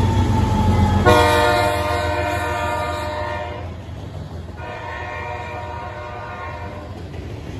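BNSF GE Dash 9-44CW diesel locomotive sounding its horn in two long blasts, the first about a second in and the second, fainter one from about four and a half seconds. Under the horn runs the steady rumble of the freight train rolling past, growing quieter as the locomotive moves away.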